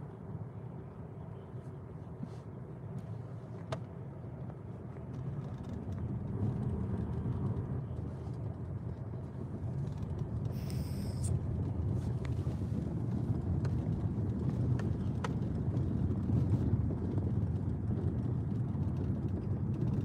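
Engine and tyre noise heard inside a moving car's cabin: a steady low rumble that grows louder about five seconds in as the car gathers speed. A brief hiss sounds near the middle.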